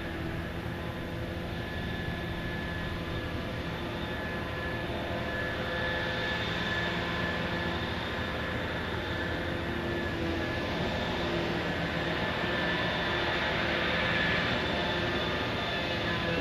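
Heavy diesel-hydraulic machinery of a Liebherr P995 backhoe dredger running steadily: a low engine rumble with a high, even whine over it, growing slightly louder toward the end.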